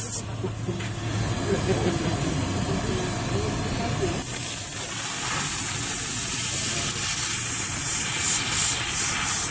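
Oxygen cutting torch running with a steady, loud hiss as it burns through metal; the hiss turns brighter about four seconds in.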